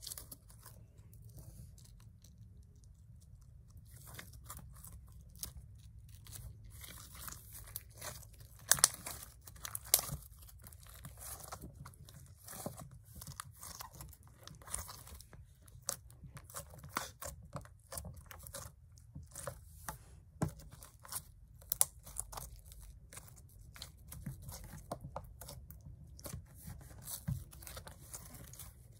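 Soft yellow slime being stretched, squeezed and pressed by hand, giving a run of sticky crackles and small clicking pops. The crackling is sparse for the first few seconds, then busier, with a few louder pops.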